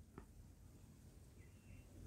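Near silence: room tone, with one faint tick shortly after the start.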